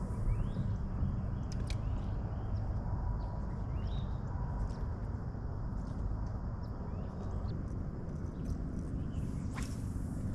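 Birds chirping, with short rising calls scattered throughout, over a steady low rumble. A few sharp clicks, about a second and a half in and near the end.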